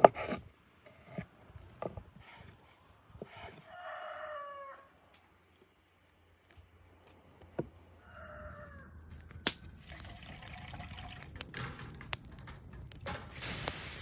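A cleaver knocks through sausage onto a wooden board in a couple of quick chops. A rooster crows about four seconds in and gives a shorter call around eight seconds. From about ten seconds a wood fire crackles, with scattered sharp pops.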